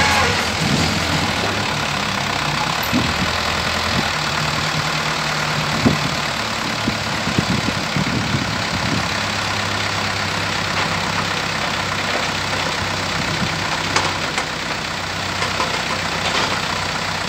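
Engines of a Kato hydraulic excavator and a small cargo truck running steadily side by side. A few sharp knocks and clanks sound between about six and nine seconds in.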